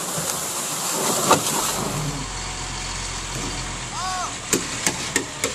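A medium-duty truck with a dump bed driving by, with a loud knock about a second in and several sharp knocks in the last second.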